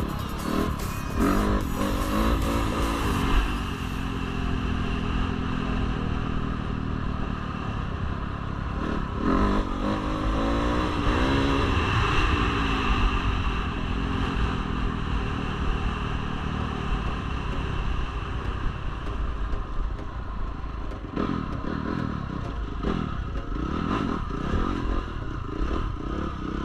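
Dirt bike engine under way, its pitch rising and falling as the throttle opens and closes, over a rattle of gravel under the tyres. Near the end the revs rise and drop quickly several times in a row as the bike picks its way along rough ground.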